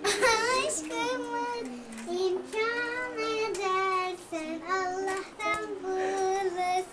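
A young girl singing, phrases of held notes that waver and glide in pitch.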